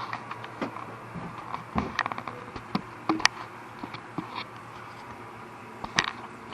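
Scattered light clicks and knocks of plastic ATV parts being handled as the seat is lifted off, the loudest about two, three and six seconds in, over a faint steady low hum.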